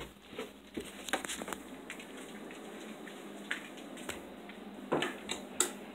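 Handling noise from a handheld camera being carried: scattered knocks, taps and rustles at irregular intervals, the loudest near the end.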